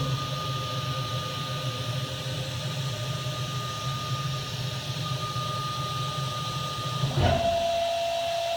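Laguna SmartShop II CNC router's spindle running with a steady high whine over a low hum while it routes a sheet of board. About seven seconds in there is a brief sharp sound and the whine drops to a lower steady pitch.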